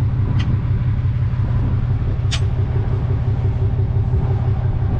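Truck engine idling steadily, with two brief sharp clicks: one just after the start and a louder one a little past two seconds in.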